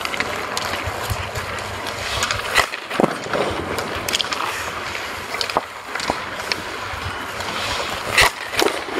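Ice skate blades scraping and carving on rink ice during goaltender practice, with several sharp clacks, the loudest near the end.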